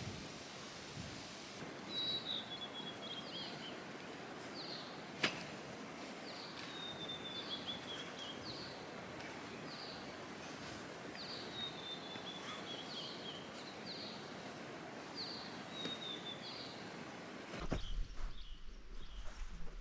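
A songbird singing outdoors over a steady background hiss, repeating the same phrase every few seconds: a few short high notes and then a quick falling trill. A single sharp click comes about five seconds in, and the sound changes abruptly to a different, louder background near the end.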